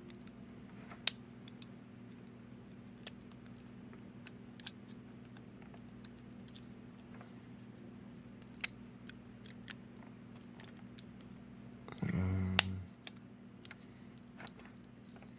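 Small scattered clicks and taps of a 1:64 scale diecast car being handled and pressed back onto its base, over a steady low hum. About twelve seconds in, a brief louder low-pitched sound ends in a sharp snap as the car is pushed together.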